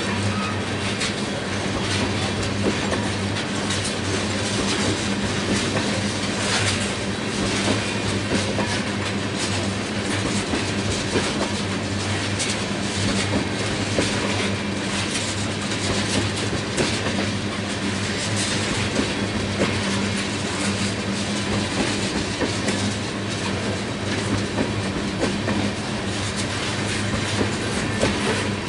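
Oil tank cars of a freight train rolling past, their wheels clicking and rattling over the rail joints over a steady low hum.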